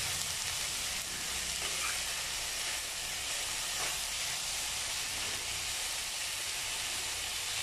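Chopped onions sizzling steadily in hot coconut oil while being stirred with a spoon in the pan; they are being sautéed until soft.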